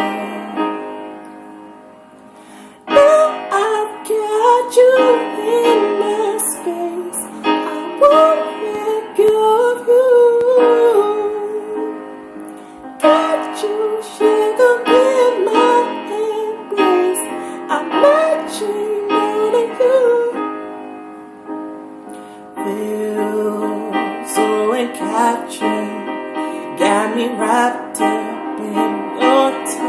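A solo voice singing a melody in phrases with short pauses, over sustained keyboard chords.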